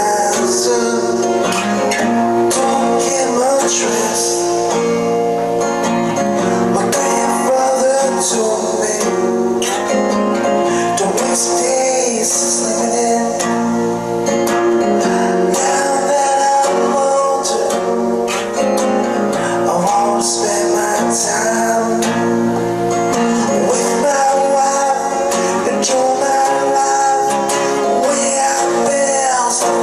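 Music: a song carried by a strummed acoustic guitar.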